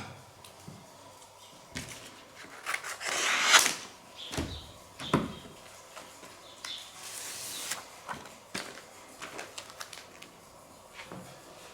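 Handling noises: scattered knocks and clicks with two short, hissy rushes of noise, the louder one about three and a half seconds in.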